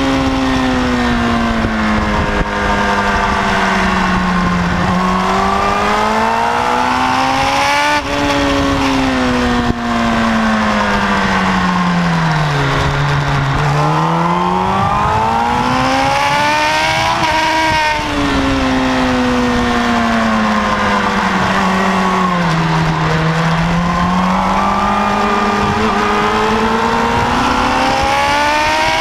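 Kawasaki ZX-10R inline-four engine, heard from on board at track speed, with wind rushing over the fairing. The revs rise and fall continuously: sudden drops at gear changes about eight and eighteen seconds in, and two deep falls to low revs, around thirteen and twenty-three seconds, before climbing hard again.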